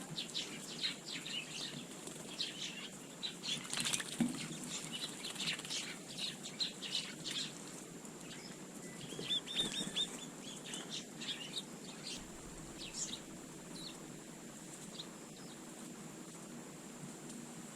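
Small garden birds chirping in quick short notes with wing flutters, busiest over the first dozen seconds, with one sharper, louder flutter about four seconds in.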